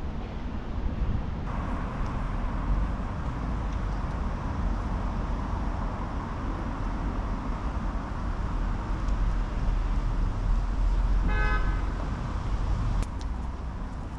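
Steady street traffic noise with a low rumble, and one short vehicle horn toot about eleven seconds in.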